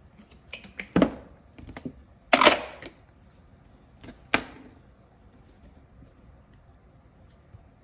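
A plastic acetone bottle and its lid being handled while acetone is poured into a small dish: a few clicks and knocks, a half-second rush of noise about two and a half seconds in, and one sharp tap against the table near four and a half seconds.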